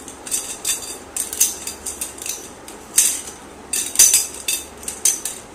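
Thin hollow metal shoe-rack tubes clinking and rattling against each other as they are picked out of a pile and counted by hand. The clinks come irregularly, with the loudest about three and four seconds in.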